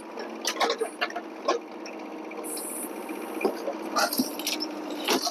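A wooden dresser cracking and snapping as it is crushed by a Yanmar excavator, with a string of sharp cracks over the steady hum of the excavator's engine.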